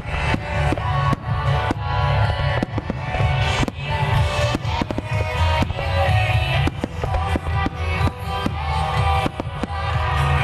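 A wide starmine firework barrage set to music. Many sharp shell bursts go off in quick, irregular succession, several a second, over loud music with a heavy bass played through the show's loudspeakers.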